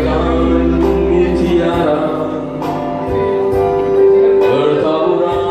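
A man singing into a microphone, amplified over a live band's accompaniment, holding one long note about four seconds in.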